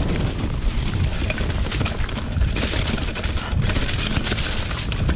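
2020 Specialized Pitch mountain bike riding downhill on a leaf-covered dirt trail: tyres rolling over leaves and dirt, the bike clattering with many small knocks over bumps, and wind rumbling on the microphone.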